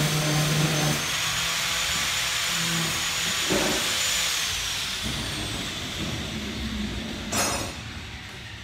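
A steady hiss with a thin high whistle in it, easing off in the second half, and a brief sharp noise near the end.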